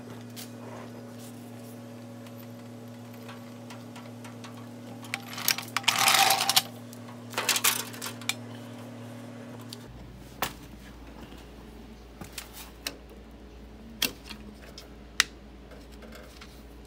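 Hand-work noises of working under a utility vehicle: scattered clicks and knocks of metal parts and tools, with two louder scraping, rustling stretches about six and seven and a half seconds in. Under them runs a steady electrical hum that drops lower in pitch about ten seconds in.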